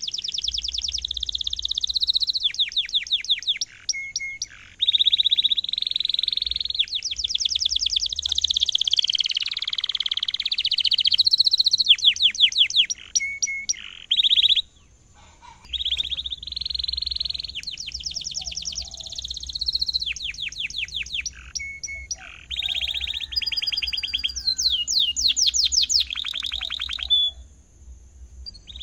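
Domestic canary singing in full voice: a long song of fast trills of repeated sweeping notes alternating with held, rolling phrases, broken by short pauses about halfway through and near the end.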